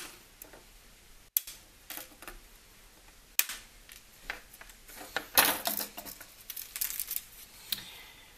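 Flush cutters snipping the excess resistor leads off a circuit board: a series of irregular sharp metallic clicks, busiest about five to seven seconds in, with small clinks of clipped wire and the board being handled.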